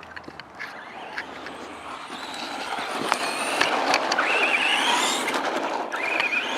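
RC truck driving over the street: tyre noise and a motor whine grow louder as it approaches, with the whine rising in pitch as it speeds up.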